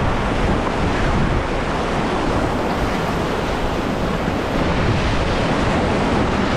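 Rushing whitewater of a river rapid, a loud, steady churning of water, with wind buffeting the action camera's microphone.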